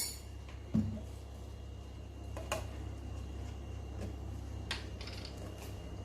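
A few light taps and clicks of kitchenware: one knock about a second in, another a couple of seconds later, and fainter clicks near the end, over a low steady hum.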